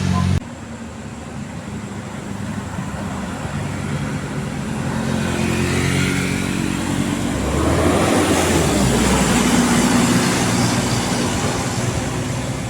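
A bus engine pulling up the climb and passing close, its note rising and growing louder to a peak about two-thirds of the way through, then easing off. A multi-tone telolet horn is cut off abruptly right at the start.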